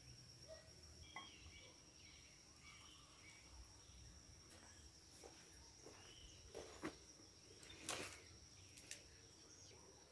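Faint garden ambience: a steady high insect trill like a cricket, with scattered bird chirps. About two-thirds of the way through come three soft knocks, the middle one the loudest.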